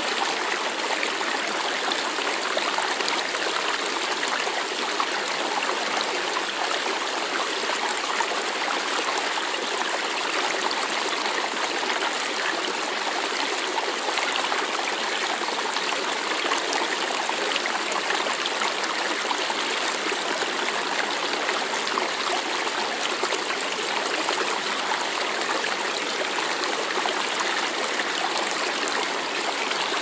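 Steady rush of flowing water, like a stream, with no breaks or changes.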